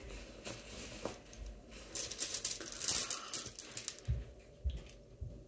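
A cotton drawstring dust bag rustling as it is pulled open, then, about two seconds in, a gold-tone metal chain strap for a Louis Vuitton bag jingling and clinking link against link for about two seconds as it is lifted out. A few soft thumps of handling follow near the end.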